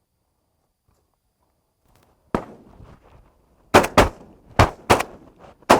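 Shotguns firing at passing doves: six blasts, the first about two seconds in, then five more in quick succession, several of them in close pairs.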